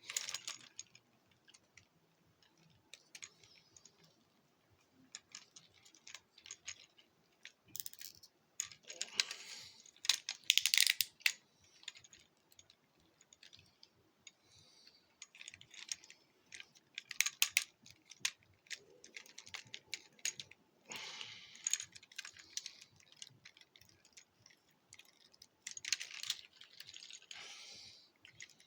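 Plastic Transformers Ratchet action figure being handled and transformed: irregular clicks and rattles as its joints and panels snap and shift.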